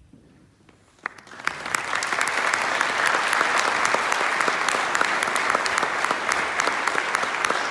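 Audience applause: after about a second of quiet, clapping starts and quickly builds into steady applause from many people.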